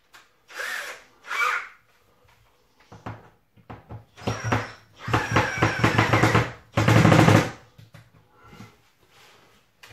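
Cordless drill-driver driving screws up through the underside of two chipboard worktop sections to join them, in several short bursts. There is a rapid rattle in the middle, and the longest, loudest run is about seven seconds in.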